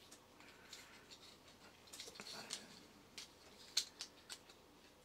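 Faint clicks and scraping of a small gear motor being worked out of a 3D-printed plastic frame by hand. A run of scraping comes about two seconds in, then a few sharp plastic ticks.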